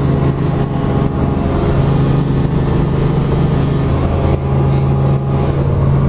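Helicopter running with a loud, steady drone, a constant low hum under an even rushing noise.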